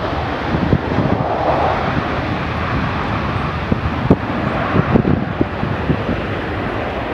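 Gulfstream G550 business jet's twin turbofan engines heard as a steady rush of jet noise during the landing rollout, with irregular low wind thumps on the microphone.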